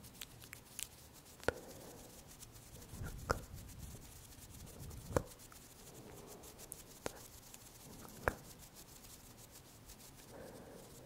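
Fingertips softly rubbing and scratching close to the microphone, a faint crackly texture broken by about five sharp clicks a couple of seconds apart.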